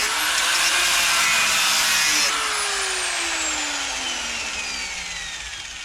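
Angle grinder cutting into the camper's steel frame with a steady, hissing whine. About two seconds in it is released, and the disc winds down with a falling whine that fades away.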